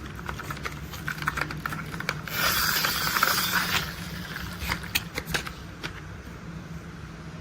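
Toy construction vehicles being handled: irregular small plastic clicks and knocks, with a denser rattling scrape lasting about a second and a half near the middle, over a faint steady low hum.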